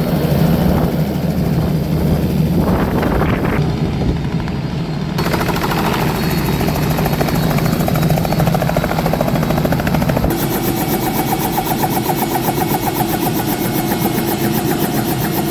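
Helicopter rotor and turbine engine running steadily and loudly. The sound shifts abruptly a few times.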